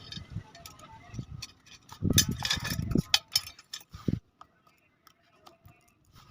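Steel spokes clicking and clinking against a motorcycle wheel rim and hub as they are threaded into the spoke holes while the 36-spoke wheel is laced. The clinks are thickest with some knocking about two seconds in, and die away to a few faint ticks after about four seconds.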